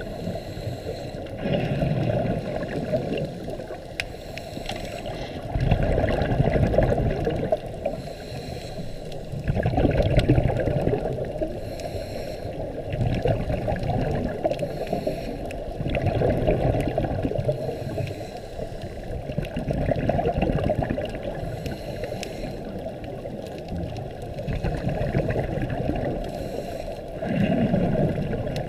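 Scuba diver breathing underwater through a regulator: bursts of exhaled bubbles gurgling, one every three to four seconds, heard muffled through the water.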